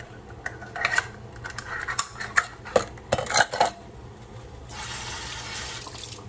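Plastic measuring cups clicking and clattering against each other as they are handled and one is taken off its ring, a quick run of sharp knocks over the first few seconds. Later comes a steady hiss lasting about a second and a half.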